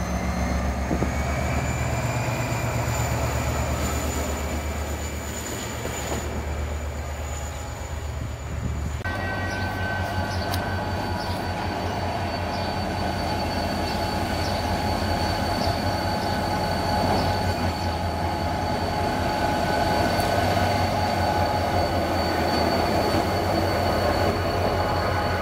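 Diesel locomotive engine running close by: a steady low rumble with a thin high whine above it. About nine seconds in the sound changes abruptly to a locomotive moving up along the track, its engine throbbing under a steady high whine that grows a little louder as it comes alongside.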